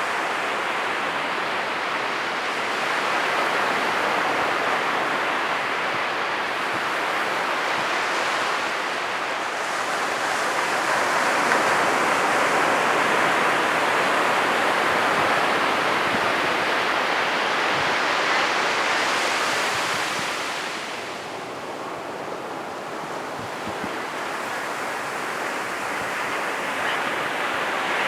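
Ocean surf: waves breaking and washing up the shore in a continuous rush, swelling louder through the middle, easing off for a few seconds, then building again near the end.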